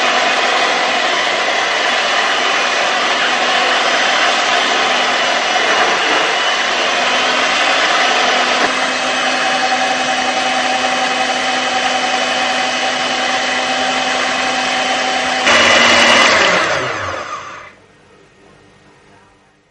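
An electric motor runs loudly and steadily with a whine, jumps louder about fifteen seconds in, then is switched off and spins down with falling pitch, fading out over about two seconds.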